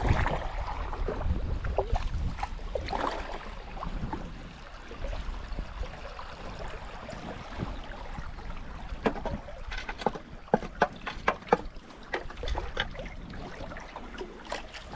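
Canoe being paddled down a shallow creek: water trickling and lapping around the hull and paddle. Wind rumbles on the microphone, easing after about four seconds, and a quick run of small sharp splashes and drips comes a little past the middle.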